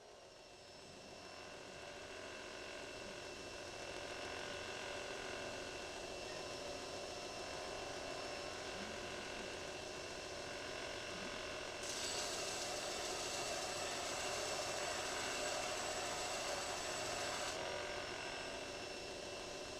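Belt grinder with a 150x1220 mm sanding belt running up to speed over the first few seconds, then running steadily with a whine. About twelve seconds in, a louder hiss joins for about five seconds, then drops away.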